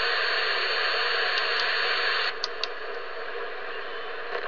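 President McKinley CB radio's receiver giving out steady static hiss on an empty channel. The hiss drops noticeably about two seconds in, followed by a couple of brief clicks.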